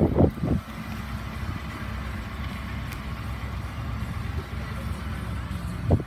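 Ford F-150 pickup's engine idling with a steady low hum. Short bursts of a voice come at the start and again just before the end.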